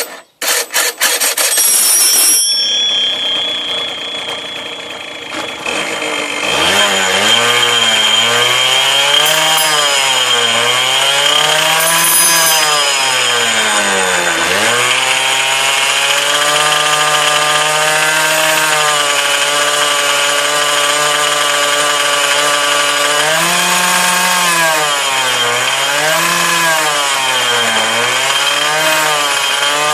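Honda Dio scooter's small two-stroke single-cylinder engine, running with its variator removed, is cranked over and started, then revved up and down again and again, holding a steady speed in between. The owner is listening for a knock he suspects comes from worn crankshaft bearings.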